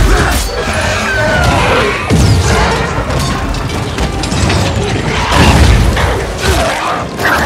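Film battle sound effects over a music score: heavy booms and crashing impacts, the biggest hits about two seconds in and again about five and a half seconds in.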